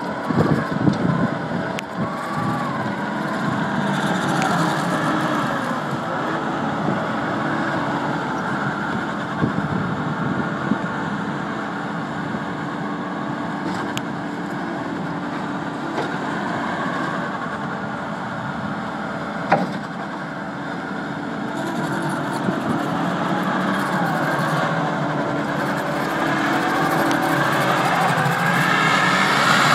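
Takeuchi TL150 tracked skid steer's 97 hp diesel engine running under load as the machine is worked, its pitch and level shifting, with gliding whines over the engine note. There is a sharp knock about two-thirds in, and the sound grows louder near the end.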